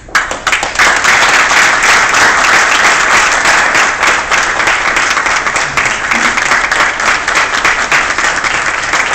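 An audience applauding: many hands clapping together, breaking out all at once and keeping up steadily.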